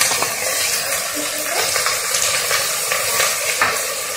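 Chana dal and moong dal sizzling in hot mustard oil in a pressure cooker: a steady frying hiss, with a few light clicks of a spatula against the pot.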